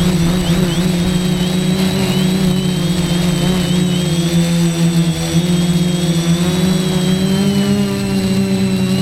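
F450 quadcopter's brushless motors and propellers buzzing steadily in flight, with a high whine that wavers up and down in pitch.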